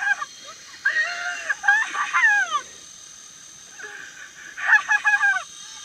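Excited, high-pitched shouting and yelling from people, in three bursts, the second ending with a falling cry.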